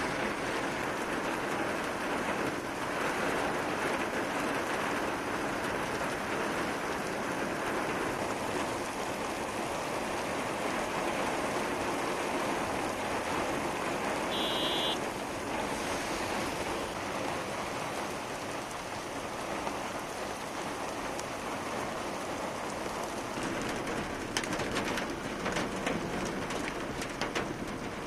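Heavy rain pouring down on a road and hissing steadily. A brief high chirp comes about halfway through, and near the end there are sharp ticks of hailstones striking.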